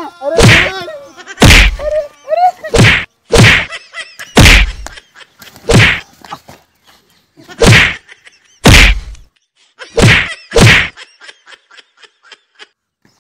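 A series of about ten loud whacks, one every second or so, from blows in a staged beating with fists and a stick.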